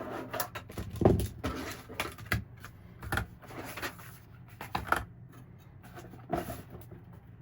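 Scattered clicks and knocks of a Dell OptiPlex 3020 small-form-factor desktop's case being handled and opened by hand, the loudest knock about a second in.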